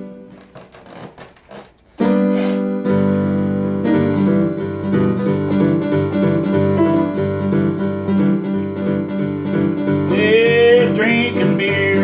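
Instrumental song intro on keyboard and guitar: a chord rings and fades, and a few quiet notes follow. About two seconds in, a full steady keyboard backing with bass kicks in, and a voice starts singing near the end.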